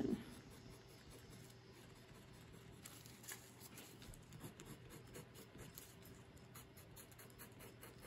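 Faint scratching of a wooden barbecue skewer's tip through black watercolor dye into oil pastel on paper, in many quick short strokes, more frequent from about three seconds in.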